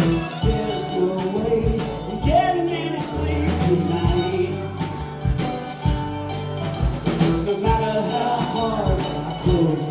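Live band playing an up-tempo rock number, with a steady run of sharp beats under a bass line and a bending melodic lead.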